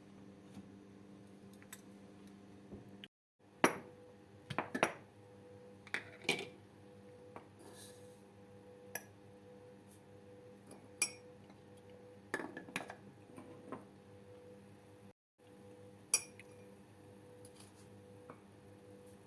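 Utensils and dishes clinking in a kitchen: irregular sharp knocks and clinks of metal and glass or ceramic, a few in quick clusters, over a steady low appliance hum. The sound cuts out briefly twice.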